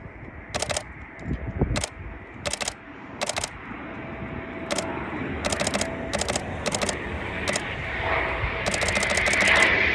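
Canon 7D DSLR shutter clicking close to the microphone: single shots about every second, then a rapid burst near the end. Behind it the noise of a Eurofighter Typhoon jet grows steadily louder as the aircraft approaches.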